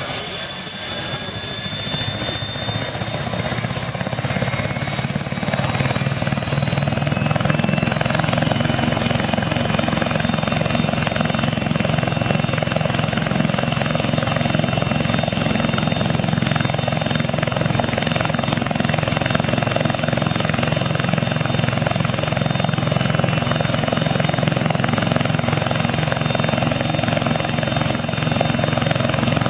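Eurocopter Tiger attack helicopter's twin MTR390 turboshaft engines running on the ground as the four-blade main rotor spins up. A high turbine whine rises for the first seven seconds or so, then holds steady over the low, steady rotor noise.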